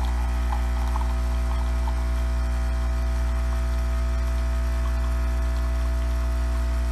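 Breville Nespresso Creatista Plus brewing a coffee: its pump runs with a steady, really loud hum.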